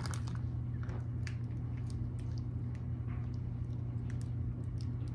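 Small plastic icing packets and a gel tube being handled and squeezed, with light scattered rustles and clicks, over a steady low hum.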